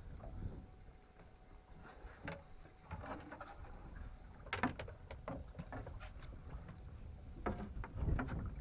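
A landing net being handled aboard a boat: scattered knocks, clicks and rattles of its hoop and the gear, over a steady low rumble of wind and water.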